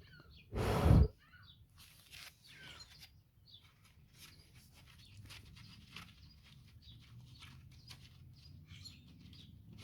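A single loud clunk about half a second in, then faint bird chirps over a low, steady background.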